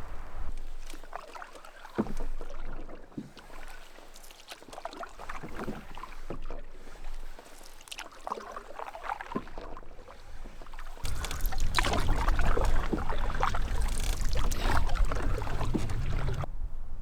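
Canoe paddle strokes, with water splashing and dripping off the blade at an irregular pace. About eleven seconds in, a louder low rumble joins the strokes.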